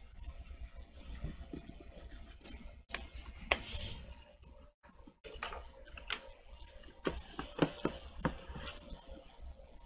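Cardboard packaging and paper being handled: a faint rustling with scattered sharp taps and knocks, the loudest about three and a half seconds in and several more between seven and eight seconds in.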